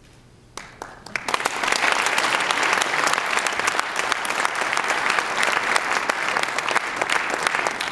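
Audience applauding: a few scattered claps about half a second in, swelling by about a second in into steady applause from many hands.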